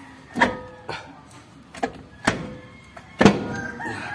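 Cast-iron brake drum of an Isuzu Elf truck being worked onto its wheel hub: a series of metallic knocks and clunks with a short ringing tone, the loudest about three seconds in.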